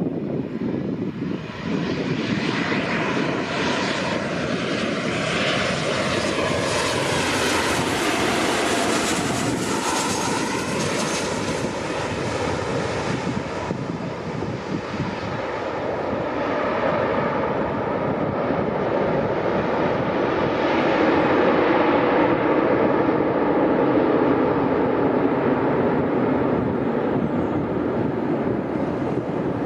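Boeing 737-800's CFM56 jet engines on landing. The whine and roar grow and fall in pitch as the jet passes low on final approach, then ease around touchdown. A second, deeper swell of engine noise follows during the rollout.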